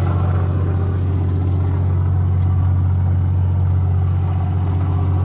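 Diesel engines of a long-range sportfishing boat running steadily underway: a loud, even low hum that does not change.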